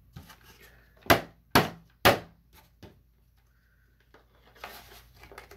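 Three sharp clacks of a stiff plastic blister tray being pushed and knocked to pop a stuck collector's coin out of it, then a brief softer rustle of the plastic near the end.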